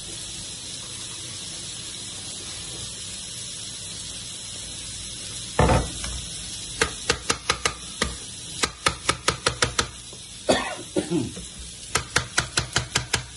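Kitchen knife slicing a red onion on a plastic cutting board: from about halfway in, three quick runs of cuts at about five a second, with a couple of heavier knocks on the board. A steady sizzle of frying runs underneath.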